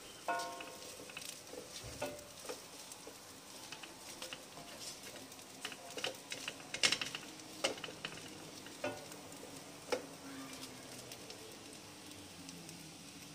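Garlic fried rice sizzling faintly in a stainless steel pan while a silicone spatula stirs it, scraping and knocking against the pan in short irregular strokes, with a run of louder strokes around the middle.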